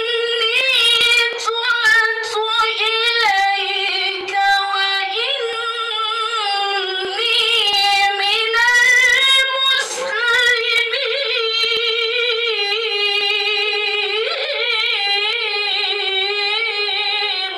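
A woman chanting Qur'an recitation into a microphone, in a melodic style: long held notes with wavering ornaments, sung almost without a break, with a short pause about ten seconds in.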